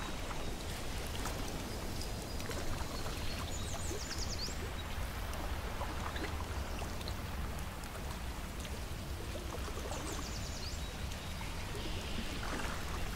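Small lake waves lapping against shoreline rocks, with steady wind rumbling on the microphone. Two brief high trills come about six seconds apart.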